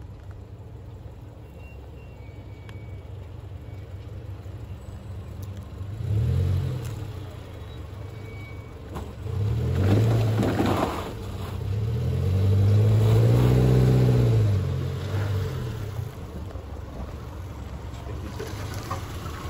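Subaru Forester's flat-four engine pulling it up a rutted dirt trail, revving up and back down three times; the last rev is the longest and loudest.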